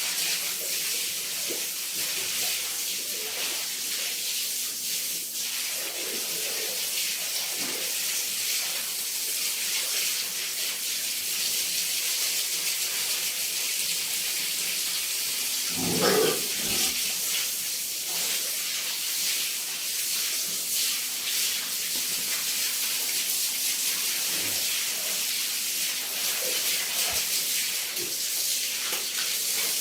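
Steady hiss of running or spraying water, with one brief louder sound about halfway through.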